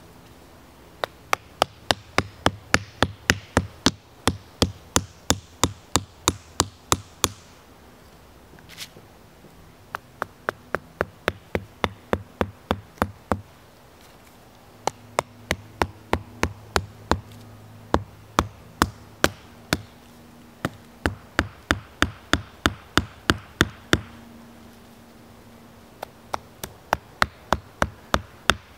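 Wooden tent stakes being driven into the ground with blows from the pommel of a SOG Basecamp axe: runs of sharp knocks, about three a second, with short pauses between runs as one stake is finished and the next is started.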